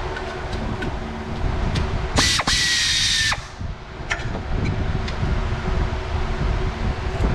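A power tool runs in one burst of a little over a second, about two seconds in, over a steady background rumble with scattered sharp tool clicks.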